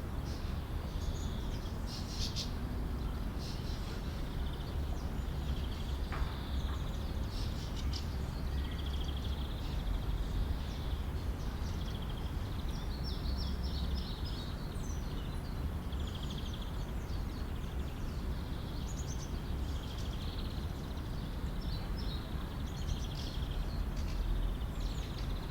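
Park ambience: small birds chirping and trilling again and again over a steady low background rumble.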